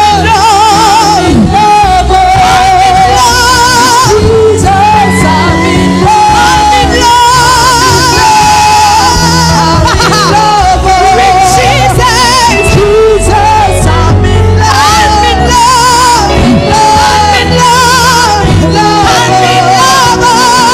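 Live worship music: a solo voice singing long, wavering notes over sustained chords.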